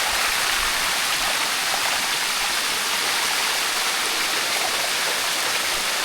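Water running steadily down the limestone cascade of the Sticky Waterfalls, an even, unbroken rush of flowing water.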